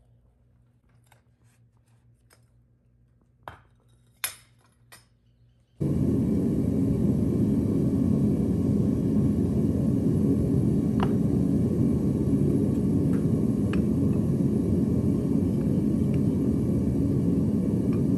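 A few faint metal clinks, then, about six seconds in, a sudden steady loud rush of a gas-fired melting furnace's burner running. Occasional light clinks of tongs on the ingot mold sound over it.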